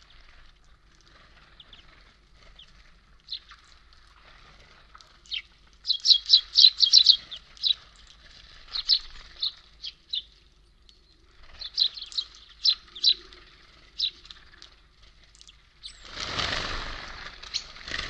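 Small songbirds calling at a seed feeder: short, sharp high chirps, with quick runs of several notes about six seconds in and again about twelve seconds in. A rush of wing flaps comes near the end.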